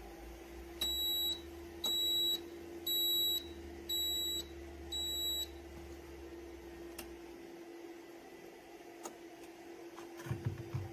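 Five short, high electronic beeps about a second apart from the CHULUX Slim espresso machine's control panel, over a faint low hum that stops partway through, followed by a few small clicks.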